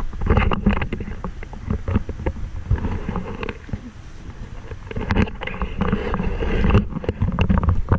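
Close handling noise: irregular knocks, bumps and rubbing as a hard plastic stove carrying case is moved about and handled.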